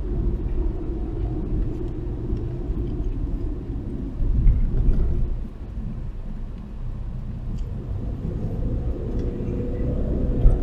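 Steady low rumble of a moving car heard from inside the cabin, road and engine noise with a faint droning hum, swelling briefly about four seconds in.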